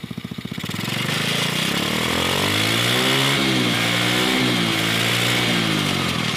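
Small off-road go-kart engine revved up from a pulsing idle about a second in, then held at high revs with the pitch wavering up and down as the throttle is worked. The kart is propped on a floor jack, so the engine runs without load.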